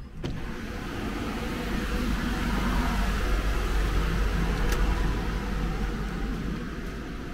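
A steady rushing noise with a deep rumble, loudest around the middle and easing off near the end. About two-thirds of the way through, a sharp click comes as the wooden door's latch is worked.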